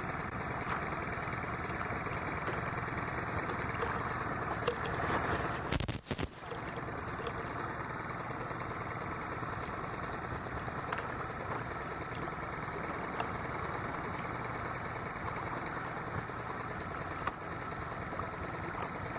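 Small boat's engine running steadily, with a brief break in the sound about six seconds in.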